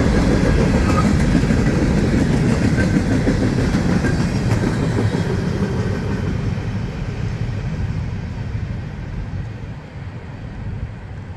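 Loaded ballast hopper cars of a freight train rolling past, their wheels rumbling over the rails; the sound fades over the last few seconds as the end of the train passes and draws away.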